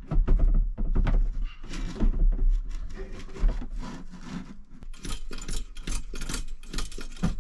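A flat-pack overhead locker cabinet being pushed up and shuffled into place under a van's ceiling: panels rubbing and scraping, with irregular knocks and clicks as it is handled and propped.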